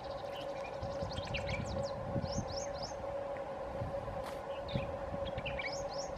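Birds chirping in quick short calls over a steady droning hum and a low rumble.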